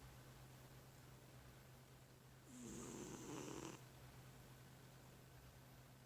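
Faint, slow snoring: one drawn-out snore starts about two and a half seconds in and lasts just over a second, a low rattle with a breathy hiss on top.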